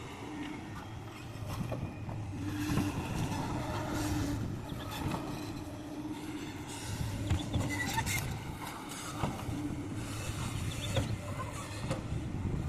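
Excavator diesel engine running steadily while loading a dump truck, with several sharp knocks and clanks scattered through the work.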